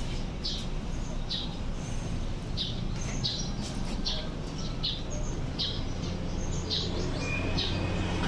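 Rear freehub of a HASSNS Pro 4 mountain-bike hub (6 pawls, 120 engagement points) clicking in short bursts, one or two a second, over a low steady hum.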